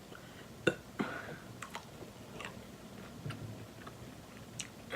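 Close-miked chewing and wet mouth sounds of a person eating a seafood boil, broken by several sharp clicks and smacks. The loudest click comes a bit under a second in.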